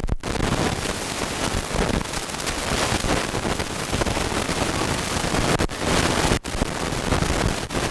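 Steady, loud cabin noise of a helicopter in flight, broken by two brief dropouts in the second half.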